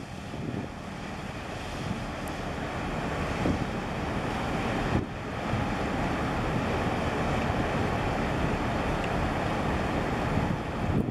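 Rushing noise of wind buffeting the microphone together with water churned up by a harbour tugboat passing close by, building over the first few seconds and then holding steady.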